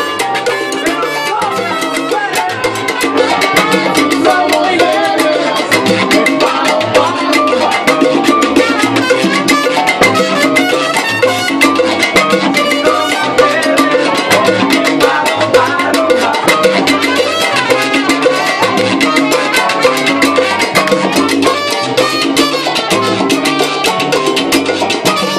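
Live salsa band playing: congas, timbales, bass guitar, keyboard and horns, over a steady stepping bass line and busy percussion. The music gets a little louder about three seconds in.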